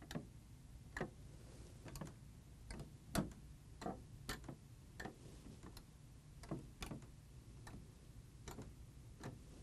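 Faint, unevenly spaced clicks of the selection button switches on a Dixie Narco HVV Pepsi vending machine, pressed one after another, well over a dozen in all. This is the diagnostics switch test, which checks that each selection switch and its harness are communicating with the control board.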